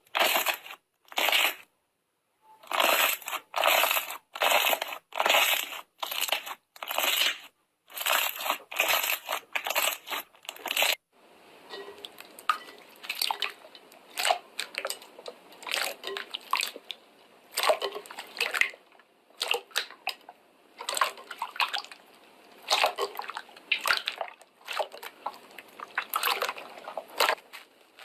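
Crunchy slime being squished, a run of crackling squishes about one every half second. About eleven seconds in it changes abruptly to softer, more irregular crackling.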